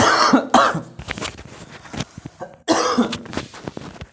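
A person coughing: two harsh coughs in quick succession, then another about three seconds in.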